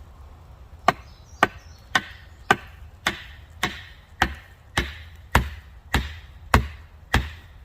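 Repeated blows on the head of a sharpened wooden stake, driving it into the ground: about twelve sharp, evenly spaced knocks, a little under two a second, starting about a second in.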